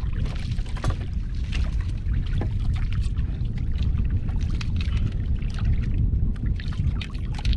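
Wind rumbling steadily on the microphone over a small boat, with irregular water splashes and drips as a wet line is handled over the side.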